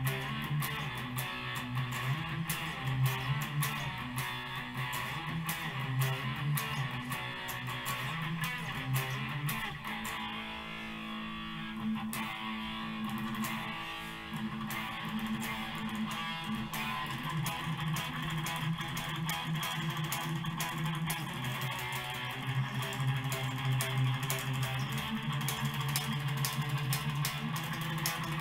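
Electric guitar being played: quickly picked notes and chords, easing into a softer, held passage about ten to fourteen seconds in before picking up again.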